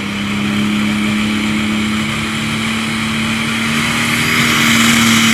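Pulling tractor's engine running hard at the starting line: a steady drone that rises slightly in pitch and grows louder near the end, with a hiss building up as it gets ready to launch.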